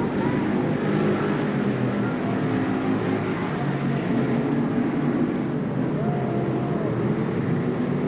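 Several race car engines running at speed together, a steady overlapping drone.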